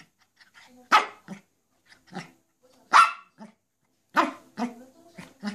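Maltese dog barking repeatedly in short, sharp barks, the loudest about a second in, at three seconds and just after four seconds, with shorter, softer barks between.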